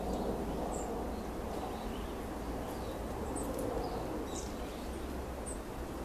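Small songbirds of a flock giving short, high chirps, scattered every second or so, over a steady low background noise.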